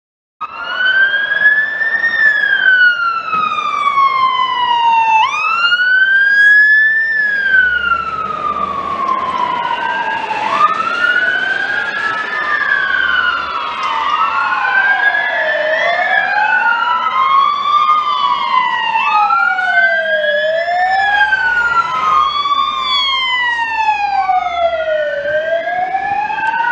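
Emergency vehicle sirens wailing, sweeping slowly up and down in pitch over a few seconds each cycle. A single siren starts suddenly about half a second in, and from about eight seconds in several sirens wail together, out of step with one another.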